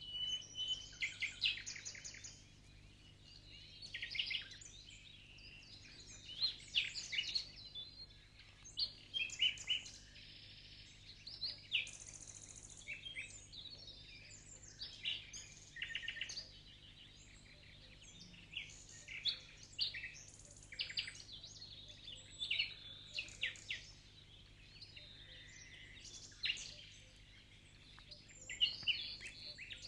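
Small birds singing and chirping in clusters of quick calls and trills, with a faint steady low hum underneath.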